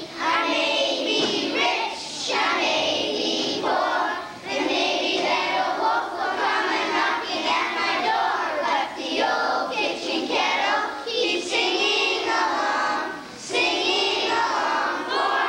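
A children's choir singing together.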